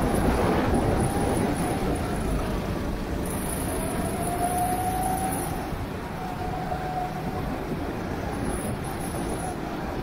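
Go-kart engine running, its note slowly rising and falling, under a heavy steady rumble of wind and road noise.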